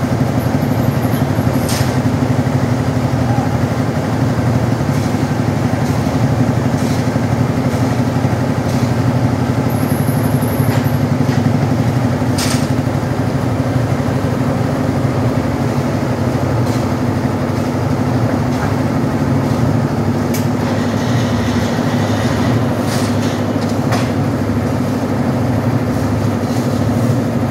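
Engine-driven concrete mixer with hoist running steadily while concrete is mixed and lifted for a roof slab, with a few sharp knocks.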